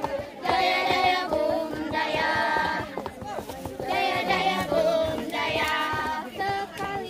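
A group of girls singing a scout yel-yel chant together in unison, in short sung phrases.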